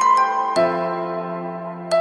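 Soft instrumental background music on a keyboard: a few struck notes, then a chord held for more than a second, with new notes struck near the end.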